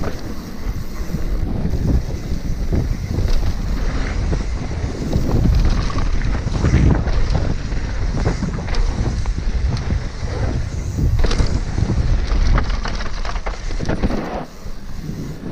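Wind rushing over the microphone as a mountain bike descends a dirt trail at speed, with the tyres rolling over dirt and stones and the bike knocking and rattling over bumps.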